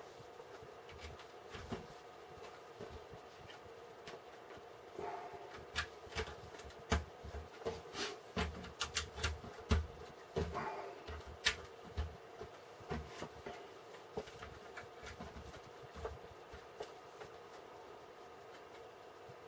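Plastic building bricks clicking and rattling as pieces are picked out and pressed together: a run of quick, sharp clicks through the middle, sparser at either end, over a faint steady hum.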